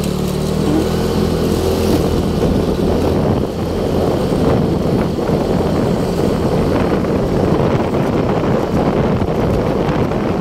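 Motorcycle being ridden along a road: the engine note is clear in the first second or two, then mostly the rush and buffeting of wind and road noise while riding.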